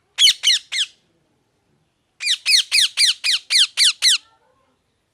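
A parrot squawking loudly: three quick harsh calls, then after a short pause a run of about eight more, each call falling in pitch.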